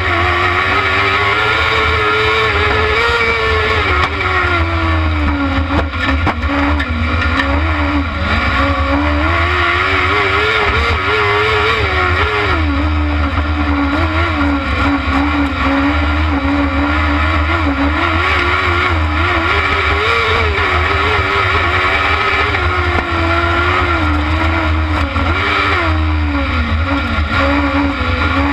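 Kart cross buggy's motorcycle-derived engine, heard close from an onboard camera, pulling hard around a dirt circuit, its note rising and falling repeatedly as the driver accelerates, shifts and lifts for corners, over a constant low rumble.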